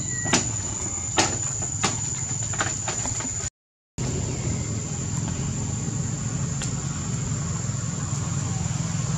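A steady low mechanical hum, like an idling engine, with a thin high whine over it. A few sharp clicks come in the first three seconds, and the sound drops out briefly near the middle before the hum carries on.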